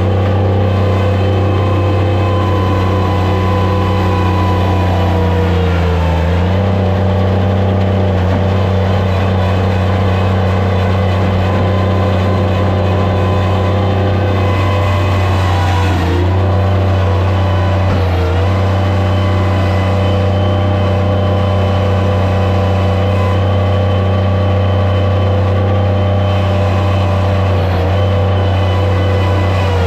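Skid steer loader engine running steadily at working speed, its pitch dipping briefly a few times, about 6, 16 and 18 seconds in.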